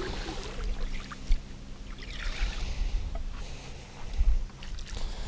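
Water lapping against a fishing boat's hull, over a steady low hum, with one light knock just over a second in.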